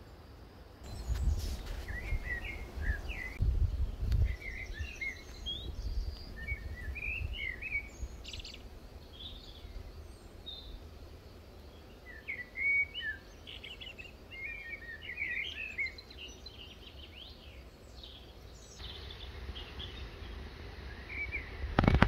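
Small songbirds chirping and twittering in quick clusters of short notes, busiest through most of the stretch and sparser near the end, over an uneven low rumble.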